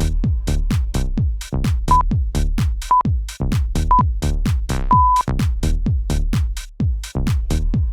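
Electronic dance music with a steady drum-machine beat. About two seconds in, three short beeps a second apart and then a longer beep, like a workout interval timer counting down to the next exercise.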